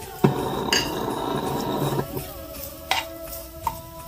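A spoon stirring grated coconut in a nonstick pan with ghee, with a few sharp clicks of the spoon against the pan in the second half, over background music.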